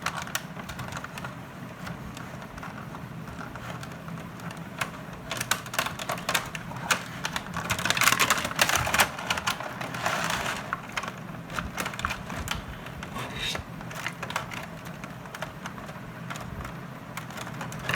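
Toy packaging being handled and worked open: a run of sharp clicks, crackles and crinkling, busiest from about five to eleven seconds in, over a steady low hum.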